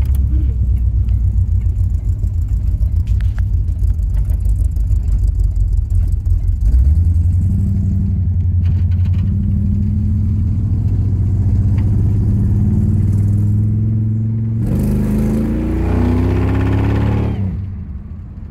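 A 1976 Chevrolet Camaro's engine, heard from inside the cabin while driving. It speeds up with rising pitch about seven seconds in, pulls harder and louder near the end, then eases off.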